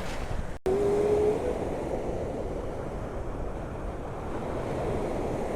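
Baltic Sea surf washing on the beach, a steady rushing with wind, after a brief dropout about half a second in; a short steady tone sounds for about a second just after the dropout.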